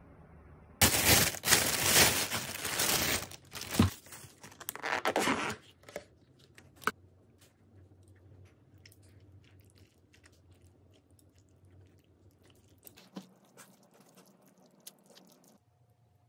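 Loud crinkling and rustling of plastic takeout packaging for about five seconds, then faint clicks and taps as the plastic food container is handled.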